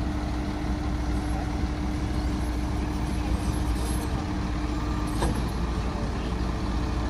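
Heavy diesel earthmoving machinery running steadily with a low rumble. A held tone sits over it and stops with a sharp click about five seconds in.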